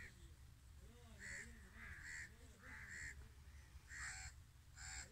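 Faint, short, harsh animal calls repeating every half second to a second, about eight in a row, over fainter low wavering sounds.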